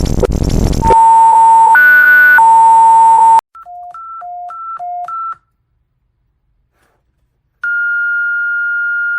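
Synthesized emergency alert tones. A loud buzzy tone steps up in pitch and back down for about two and a half seconds, then a quieter two-tone hi-lo warble alternates about three times a second for two seconds. After a short silence, a steady high beep tone is held for the last second and a half.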